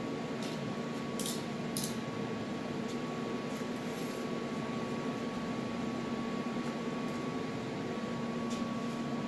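Steady hum of a small electric motor running, with two faint clicks a little over a second in.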